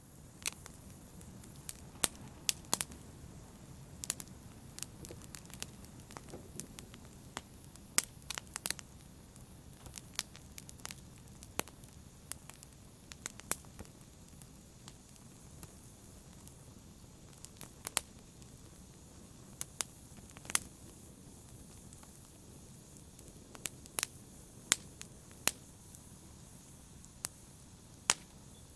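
Wood fire burning in a fireplace: irregular sharp crackles and pops, one every second or so, over a low steady rumble of flames.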